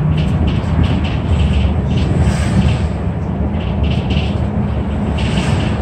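Cabin noise inside a city bus: a steady low engine rumble with short, irregular rattles over it.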